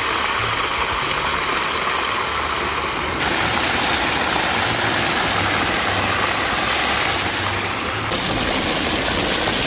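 Chicken pieces deep-frying in hot oil in a disco pan, a steady loud sizzle with a low rumble underneath. The sizzle gets louder about three seconds in and eases a little near the end.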